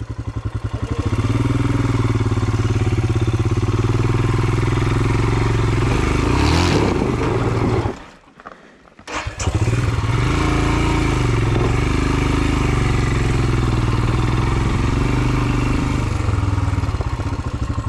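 Royal Enfield Himalayan single-cylinder engine pulling the motorcycle slowly up a rocky track, with a short rev about six seconds in. The sound cuts out abruptly for about a second just past the middle, then the engine is heard running steadily again.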